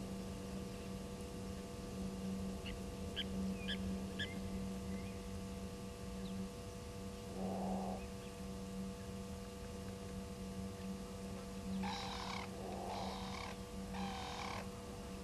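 An unidentified animal calling: a short low call about halfway through, then three short harsh calls in a row near the end, over a steady electrical hum.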